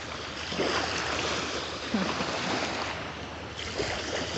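Small waves lapping and washing on the shore in shallow water, a steady wash with a few light splashes.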